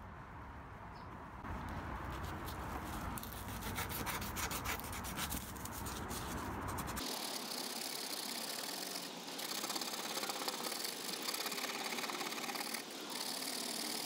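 Gloved hands working pink body filler on a small metal plate, crackly rubbing and scraping with many fine clicks. About seven seconds in it changes abruptly to a steady dry rubbing as the filler on the plate's face is rubbed back by hand with a folded pad.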